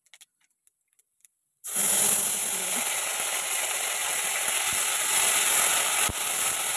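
Near silence, then about two seconds in, spice paste dropped into hot oil in a steel wok starts sizzling loudly and keeps up a steady frying hiss, with one sharp knock near the end.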